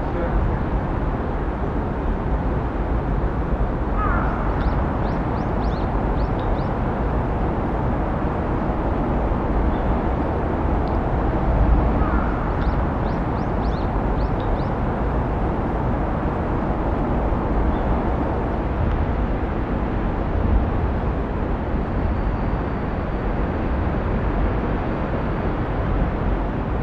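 Steady outdoor city ambience: a low rumble of distant traffic. Two short runs of faint high chirps rise above it, about four seconds in and again near the middle.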